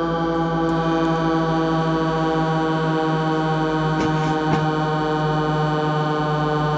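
Electronic diesel-locomotive sound generator just switched on, playing a steady buzzy chord of tones with an even pulsing throb through a small speaker. Its pitch slowly sinks as the freshly powered circuitry warms up and settles. Two brief clicks come about four seconds in.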